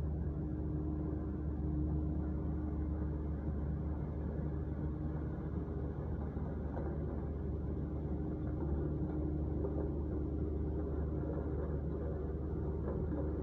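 Road compactor's engine running steadily with a low rumble, a steady hum riding over it for much of the time.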